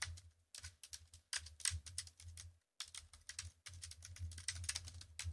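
Faint computer keyboard keystrokes in quick runs: a password being typed, then typed again into the confirm field, with a brief pause about two and a half seconds in.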